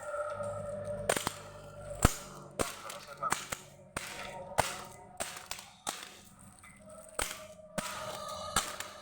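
Sharp clicks and snaps at irregular intervals, about fifteen of them, from handling the hard parts and packaging of a four-hook hanger being unboxed. The loudest snap comes about two seconds in.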